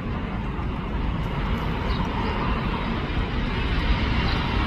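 Kenya Airways Boeing 787 Dreamliner on final approach with its landing gear down. Its jet engine noise is steady and grows gradually louder as the airliner comes in low toward the listener.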